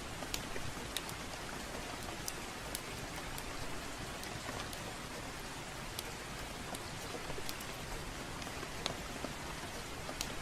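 Steady rainfall with irregular sharp crackles and pops from a wood fire.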